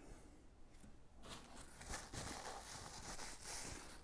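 Faint rustling and crackling handling noise, starting about a second in and dying away near the end.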